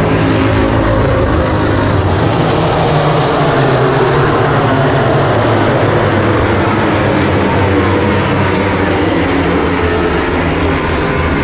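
A pack of MotoGP racing bikes passing one after another on the straight during the warm-up lap. Several 1000 cc four-stroke prototype engines are heard at once at different pitches, loud throughout.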